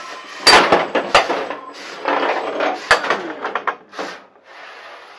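Small 450 g combat robots knocking and clattering against each other and the arena walls, with sharp hits about half a second, a second and three seconds in and rattling between them.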